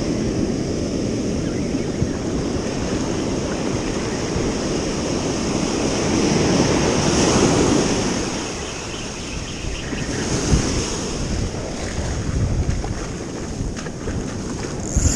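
Ocean surf washing in over a sandy beach, swelling louder about halfway through as a wave breaks and runs up, with wind buffeting the microphone.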